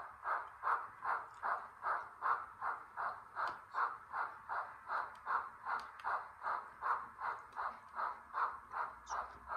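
Sound decoder of an HOn3 Blackstone K-27 model steam locomotive playing steady exhaust chuffs, a little under three a second, as the engine runs slowly.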